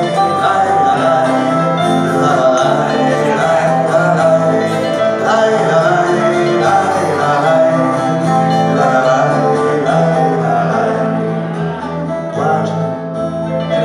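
Small live band playing a song, with plucked acoustic guitar and a double bass walking through low notes under a sustained melody line.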